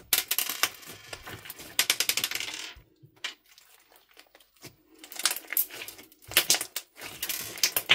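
Thick bead-filled slime squished and stretched by hand, giving off dense runs of sharp popping and crackling clicks as air pockets burst. It goes quiet for a couple of seconds near the middle, then the crackling starts again in short clusters.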